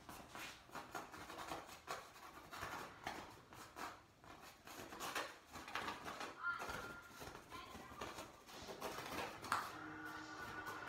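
Paint being worked over a canvas in quick, irregular brushing and scraping strokes.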